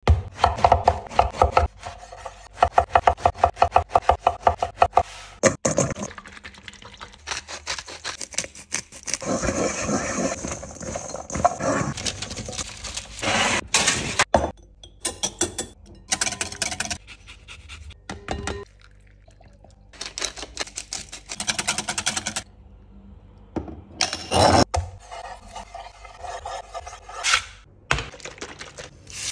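A run of kitchen prep noises with no voice. It opens with a knife cutting a loaf of bread on a wooden chopping board in quick strokes, about four a second. Then come rubbing, mixing and handling noises, a metal baking tray of bread cubes slid into an oven about halfway, and a frying pan set down on a glass hob near the end.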